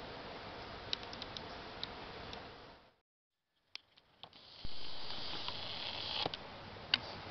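Quiet riverbank ambience: a steady hiss with a few scattered sharp ticks. The sound cuts out completely for under a second about three seconds in, then returns with a brighter, higher hiss that swells and stops shortly before the end, with more ticks.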